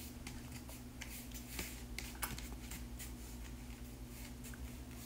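Faint crinkling and scattered light clicks of a clear plastic bag and a cardboard box being handled while a microphone is unpacked, over a steady low hum.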